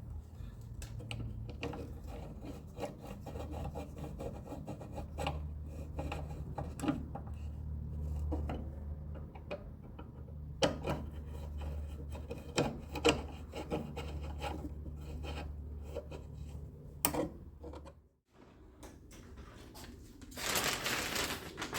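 Rubber door weatherstrip being handled and pressed into a car door: scattered rubbing, creaks and light clicks over a steady low hum. The sounds stop abruptly about eighteen seconds in, and a burst of rustling comes near the end.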